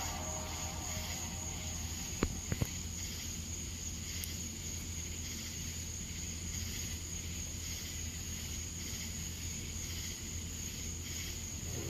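Crickets chirping steadily over a low steady hum, with two sharp clicks a little over two seconds in.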